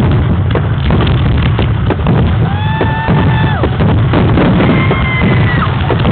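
Fireworks display in a dense barrage, many bursts and booms overlapping in a continuous rumble with rapid sharp cracks. Two long held high tones rise over it near the middle.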